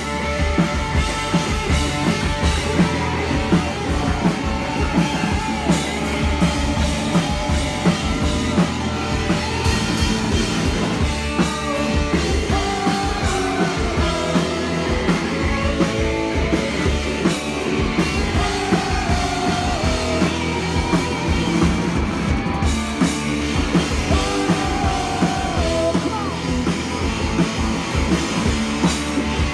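Rock band playing live, with drum kit, electric guitars and a lead singer in a punk-rock song.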